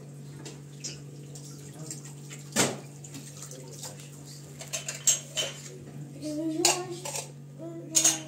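Metal dishes and pots clanking as they are handled and set down in a kitchen: a handful of sharp clinks spread across the seconds, over a steady low hum.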